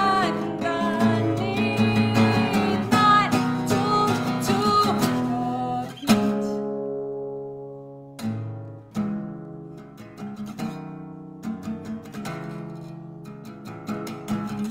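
A woman singing over a strummed acoustic guitar. About six seconds in her voice stops on a hard strum, and the guitar carries on alone with ringing chords and sparser strums.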